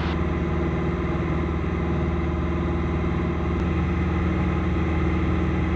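Engine and propeller of a single-engine high-wing light airplane in level flight, heard inside the cabin as a steady drone.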